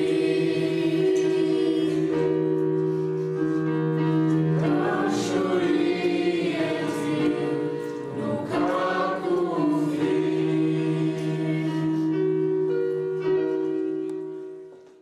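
Music with a choir singing long held chords and a few rising and falling sung phrases, fading out near the end.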